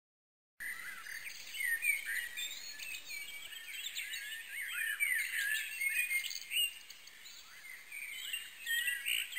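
Many small birds chirping, a dense chorus of short overlapping calls. It starts abruptly about half a second in.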